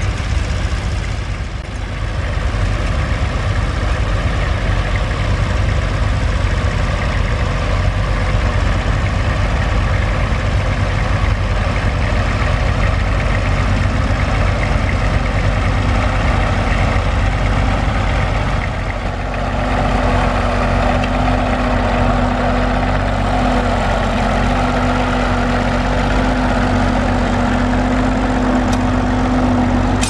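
Vintage tractor engine running steadily under load as it pulls a plough through stubble, with a stronger, higher engine note coming in about two-thirds of the way through.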